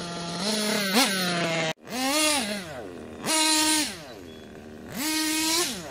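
Kyosho KE25 two-stroke nitro engine in an RC truggy revving hard in about four separate throttle bursts, the pitch climbing and falling each time, settling lower between bursts, with a brief gap in the sound just under two seconds in. The engine is freshly broken in and tuned, running strong and clean.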